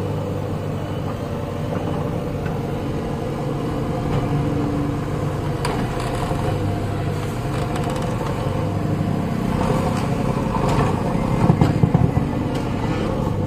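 Diesel engines of JCB backhoe loaders running steadily under load as a stuck JCB 3DX is dragged out of mud and water by a second machine, with occasional metallic clanks. The engine noise gets louder for a moment about eleven to twelve seconds in.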